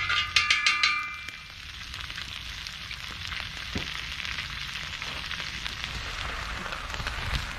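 Food sizzling steadily in a hot pan, after a few bright ringing clinks in the first second or so.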